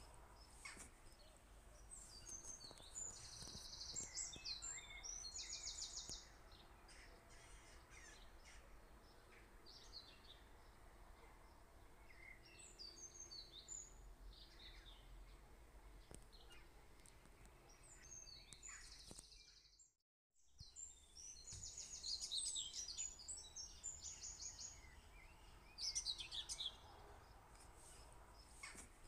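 Faint birdsong: high chirps and quick trills from birds, in clusters, over a low steady background hiss. The sound cuts out completely for a moment about twenty seconds in.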